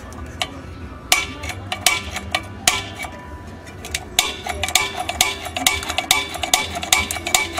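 Irregular sharp clicks and light metallic clinks from the steel burner head and reflector of an old propane patio heater being handled; the clicks come thicker about four seconds in.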